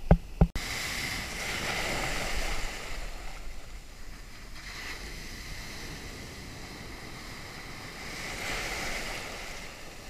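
Rough surf from hurricane swell washing around a camera held just above the water: foam rushing and waves breaking, swelling louder twice, with a few sharp knocks at the very start.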